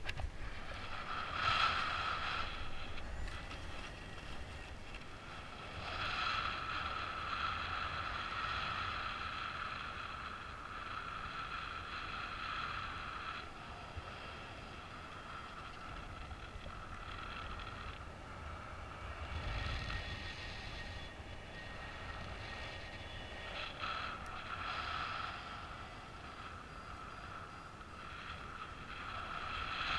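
Paragliding variometer sounding a high tone that comes and goes, the audible sign of the glider climbing in lift, over wind rushing past the microphone.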